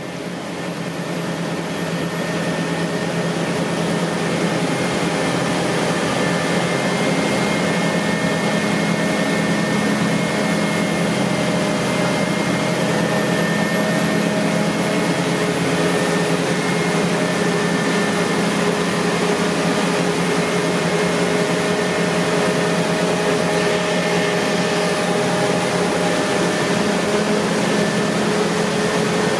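Claas Lexion 8800 Terra Trac combine harvester running under load while harvesting barley: a steady mechanical drone of engine and threshing machinery, with a few constant whining tones. It swells up over the first few seconds, then holds level.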